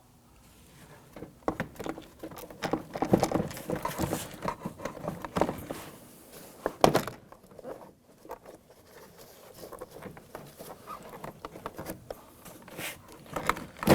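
Plastic interior door trim panel being lifted off the car door and handled: irregular plastic clicks, knocks and rustling, with a couple of sharper knocks.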